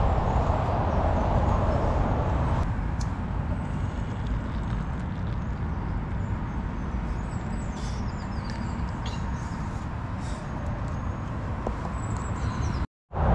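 Steady low rumble of nearby motorway traffic, with a few faint bird chirps over it.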